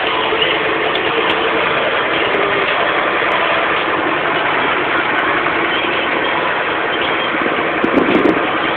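Harvest machinery engine running steadily under load, a loud, even mechanical din with a brief louder patch about eight seconds in.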